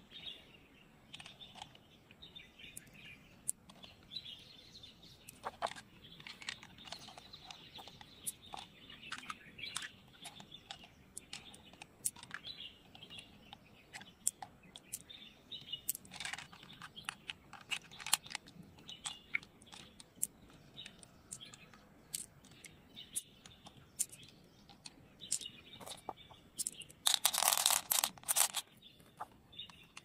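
Fingers squeezing pearls out of a freshwater mussel's wet flesh, with many small clicks and wet squelching sounds, while birds chirp in the background. Near the end a louder noisy rustle lasts about a second and a half.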